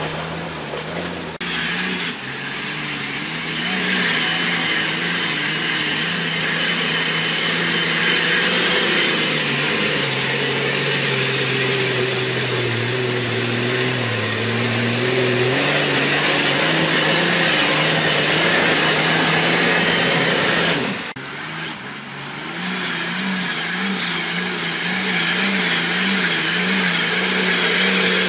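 Nissan Patrol 4x4's engine working hard under load as it crawls up loose rock, the revs rising and falling over and over with the throttle. The sound drops off briefly about 21 seconds in, then picks up again.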